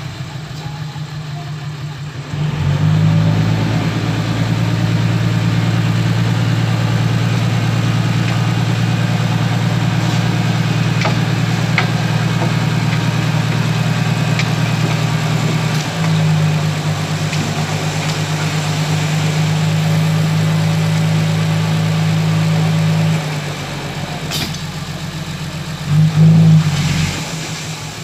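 Six-wheel dump truck's engine idling, then held at raised, steady revs from about two seconds in while the loaded tipper bed rises. The note steps up around the middle, falls back near idle a few seconds before the end, and gives a brief rev as the soil slides out of the tipped bed.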